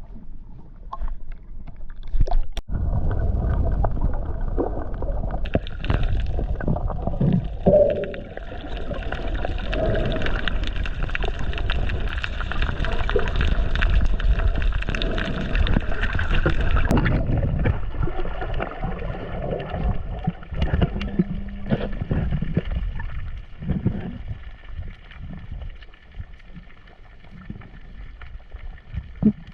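Water gurgling and sloshing close to the microphone, with a dense low rumble and irregular small knocks; it quietens for the last few seconds.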